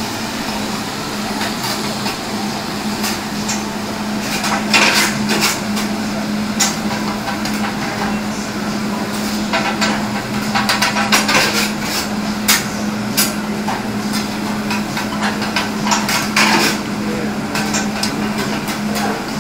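Metal spatulas clacking and scraping on a large round flat-top griddle as the cook tosses and chops food, in irregular bursts of taps. A steady hum runs underneath.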